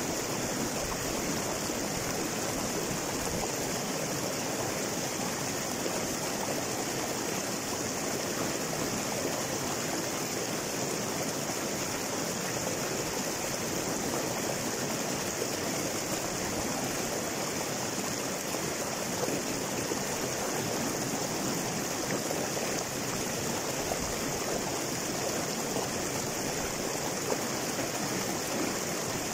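Shallow river rushing and splashing over boulders in small cascades: a steady, unbroken rush of water.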